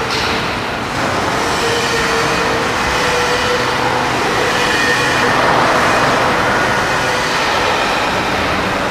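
Steady, dense mechanical din with a faint held hum running through it.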